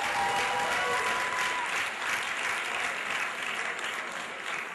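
Audience applauding steadily, easing off slightly toward the end, with a brief held high call over the first second or so.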